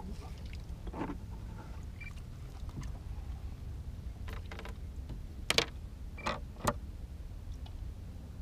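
Scattered clicks and knocks of fishing gear being handled in a small boat. The loudest is a sharp knock about five and a half seconds in, with two more shortly after, over a steady low rumble.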